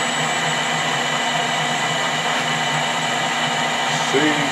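Metal lathe running steadily, an even motor whir with a steady hum and a faint regular pulse low down.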